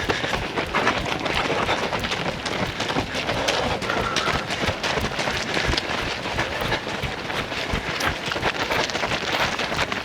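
Footsteps of a pack of runners in a race: many overlapping footfalls making a dense, even stream of short clicks.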